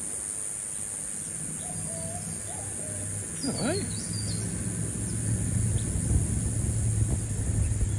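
Helmeted guineafowl foraging close by, giving a few short soft calls and one quick gliding call about three and a half seconds in. Under them run a steady high hiss and a low rumble that grows louder in the second half.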